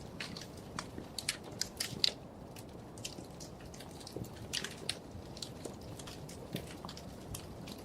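Wood fire crackling in a fireplace: a steady low rumble under irregular sharp pops and snaps, the loudest about two seconds in.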